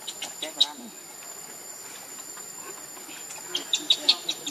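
Steady high-pitched drone of insects, with groups of short sharp chirps near the start and again in the last second.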